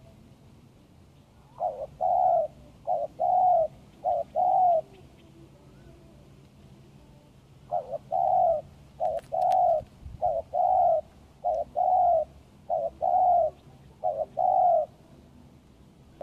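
Spotted dove cooing in two bouts, each a run of short-then-long coos, the second bout about twice as long as the first.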